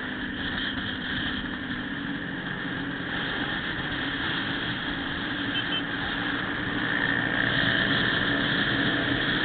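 Steady wind rush on a motorcycle-mounted camera at highway speed, with the motorcycle's engine running underneath; the rush grows a little louder near the end.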